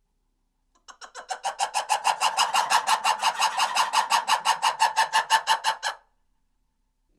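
An animal call: a fast, even run of harsh pulses, about six a second, that builds up over the first second, holds steady, and then stops abruptly.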